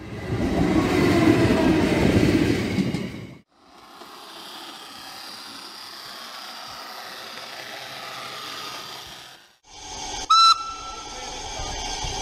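Three short train clips in a row. First, a diesel freight locomotive passes loudly at speed, with a tone that falls in pitch as it goes by. Then comes a quieter, steady running sound, followed by a steam locomotive giving one short, loud whistle blast about ten seconds in, then hissing steam.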